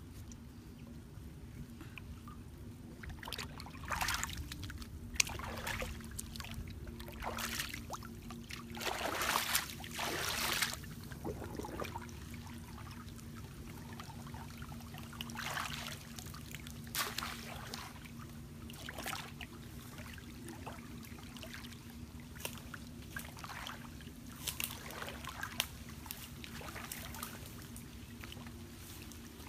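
Water splashing and sloshing irregularly as a person wades waist-deep in a stream and works her arms in the water, with a cluster of louder splashes about a third of the way in. A steady low hum runs underneath.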